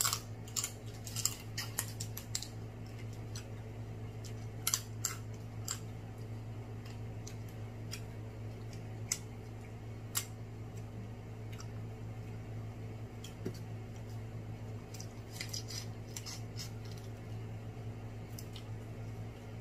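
Snow crab leg shells being cracked open, with sharp cracks and clicks coming in irregular clusters over a steady low hum.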